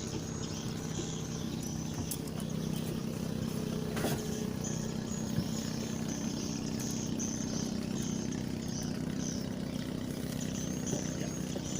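Mitsubishi L300 engine idling steadily, with one sharp click about four seconds in.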